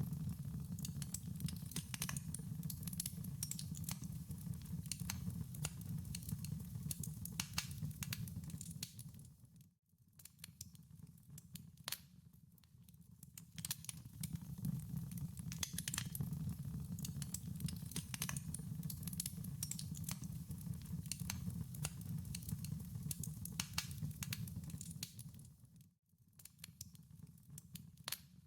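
Wood fire crackling in a fireplace: irregular sharp pops and snaps over a low steady rumble of the burning logs. The sound fades out briefly about ten seconds in and again near the end, each time coming back.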